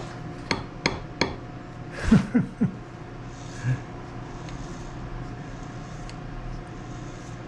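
Sharp metal clicks and knocks from a lathe chuck being handled and turned by hand against a dial indicator. The loudest is a short cluster of knocks about two seconds in, and a single thump follows a second later. A steady low hum runs underneath.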